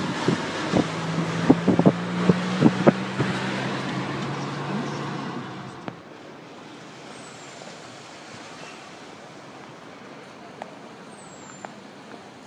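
Car driving, heard from inside the cabin: a steady engine and road hum with several sharp knocks in the first half. About six seconds in it cuts to quieter outdoor street ambience.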